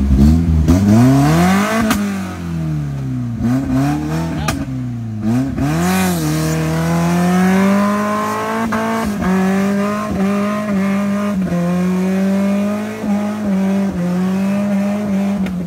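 Suzuki Jimny's engine revving hard while bogged in a mud hole, the revs rising and falling several times, then held high and steady from about six seconds in as the wheels spin and throw mud.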